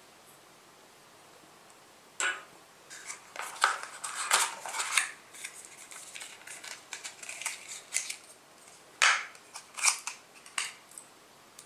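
Handling noise from small plastic phone accessories and their packaging: an irregular run of clicks, taps and rustles starting about two seconds in, with sharp knocks as pieces are set down on a glass tabletop.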